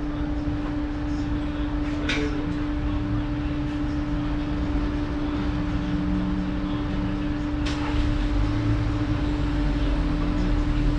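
A steady machine hum at one constant pitch over a low rumble that grows a little stronger about eight seconds in, with two sharp clicks, about two seconds in and again just before eight seconds.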